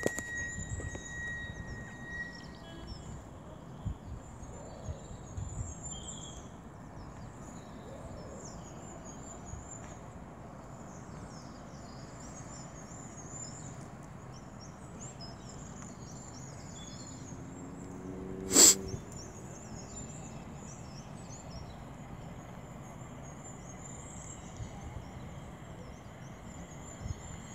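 Faint steady outdoor background with birds chirping. About eighteen seconds in comes one short, loud burst.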